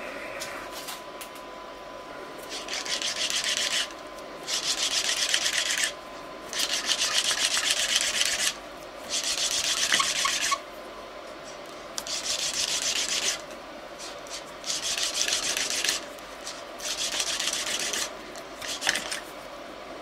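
Small bronze valve being lapped into its seat with fine grinding paste: a gritty rubbing in about seven spells of one to two seconds each, with short pauses between, as the paste grinds a matching seat on valve and body.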